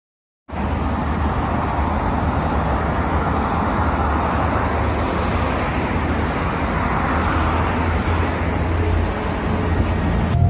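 City street traffic with a LiAZ 5292.22 city bus pulling in close to the stop, its compressed-natural-gas MAN engine rumbling low under the road noise. The sound begins about half a second in.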